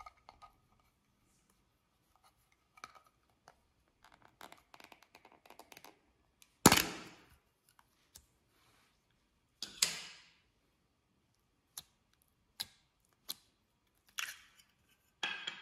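Hard plastic slime tub and its snap-on lid being handled and pried open: a faint crackle, then a series of sharp plastic snaps and clicks. The loudest snap comes about six and a half seconds in, another about ten seconds in, and shorter clicks follow roughly once a second near the end.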